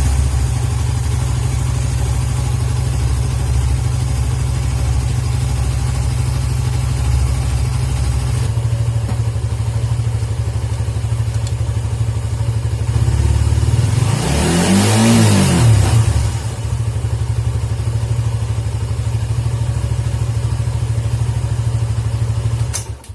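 Suzuki GSX motorcycle engine idling steadily, with one throttle blip about two-thirds of the way through whose pitch rises and falls back to idle. The test is whether the engine stumbles when the throttle is closed, the fault the uploader puts down to a dirty idle speed control (ISC) valve. The sound cuts off abruptly at the very end.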